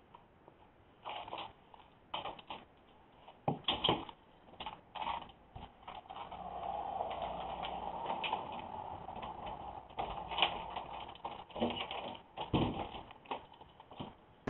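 Scattered clicks, knocks and scrapes of a storm door being opened and handled, heard through a doorbell camera's microphone, with a steadier noise for a few seconds in the middle.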